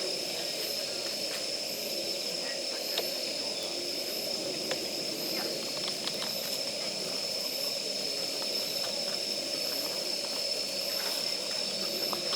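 Campfire of damp firewood crackling, with scattered sharp pops over a steady hiss. A steady high-pitched insect trill runs alongside.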